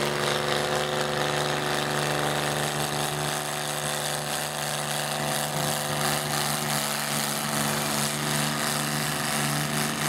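Small garden tractor engine running steadily under load as the tractor drags a weight-transfer pulling sled.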